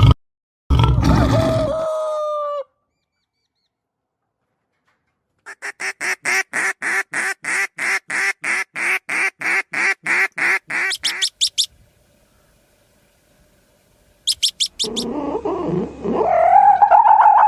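A sequence of separate animal calls: a rapid run of evenly repeated calls, about four a second, lasting some six seconds, then a few short high chirps and a longer call rising in pitch near the end.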